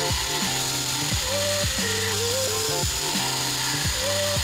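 Background music: a looping melody over a steady bass with repeated deep drum hits. Underneath it runs the steady hiss of a bandsaw cutting through a thick hard maple board.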